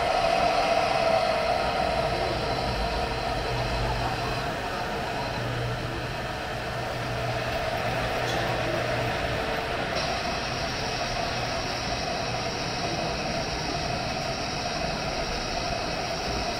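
Model trains running on a museum layout: a steady mechanical hum and rumble of locomotives and wheels on track. A brighter hiss joins about ten seconds in.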